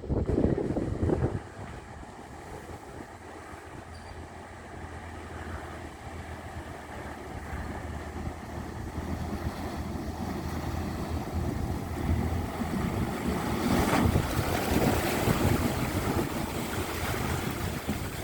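A four-wheel drive's engine running steadily as it drives through a river crossing, with water washing and splashing around it. The sound builds to its loudest about two-thirds of the way in and eases slightly near the end.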